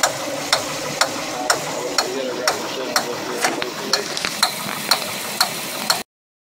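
Jasper remanufactured marine engine running with a sharp, regular tick about twice a second over its steady running noise, the kind of valve-train tick the rebuilder suggested tracing to the lifters, studs or cam. The sound cuts off abruptly near the end.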